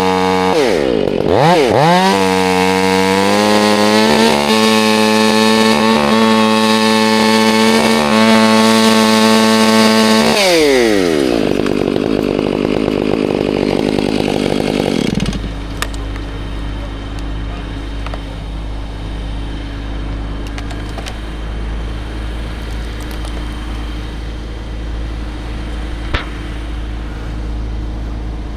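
Chainsaw running at full throttle, its pitch dipping briefly about a second in and then holding high and steady for about ten seconds before falling away. After about fifteen seconds a quieter, lower steady engine drone takes over.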